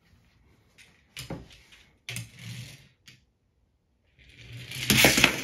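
A small model truck being handled, with a few short knocks, then a loud rattling clatter near the end.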